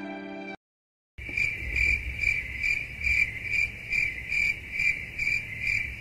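Cricket chirping sound effect, the stock "crickets" gag for an awkward silence: a steady high chirp repeating about two and a half times a second. It starts a little over a second in, after the last of a sad violin chord cuts off and a brief silence.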